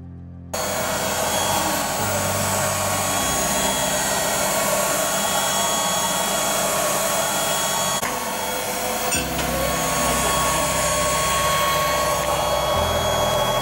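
Longer B1 30W laser engraver at work, its air assist and cooling fan blowing with a steady airy hiss and a few fixed whining tones. The sound starts abruptly about half a second in.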